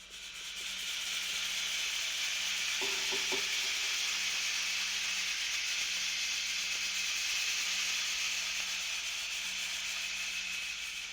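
A steady, sizzling hiss from a Halloween sound-effects record. It swells in over about a second and holds, with a brief faint tone about three seconds in.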